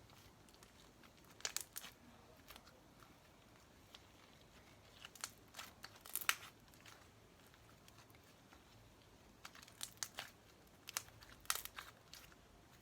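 Sticky glue slime being kneaded and pulled by hand, giving short flurries of little sticky clicks and crackles with quiet between.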